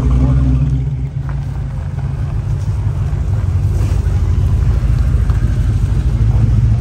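Low engine rumble of cars driving slowly past: a Holden Torana's V8 pulling away in the first second, then a late-1970s Ford F-series pickup's engine with an even, low exhaust pulse, growing louder near the end as the truck passes close.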